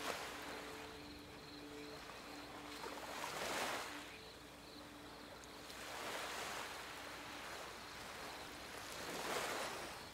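Ocean waves washing in, the surf swelling and falling back about every three seconds. Under it sit faint held tones that fade out partway through.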